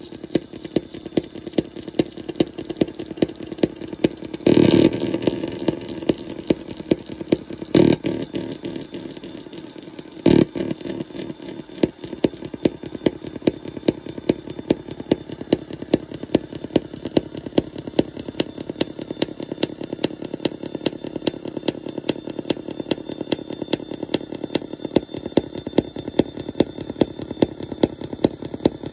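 Circuit-bent Phantom Whirlwind synthesizer putting out a buzzy, clicking electronic drone with a sharp pulse about twice a second. Three loud blasts of noise break in, about four and a half, eight and ten seconds in; the first lasts about half a second.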